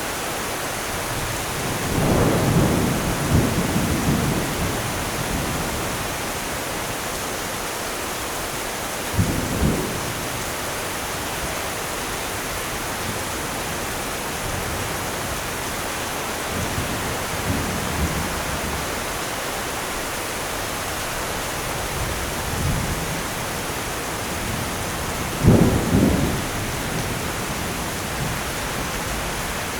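Steady heavy rain with rolls of thunder: a long low rumble about two seconds in, shorter ones around nine and seventeen seconds, and the loudest, sharper crack and rumble near the end.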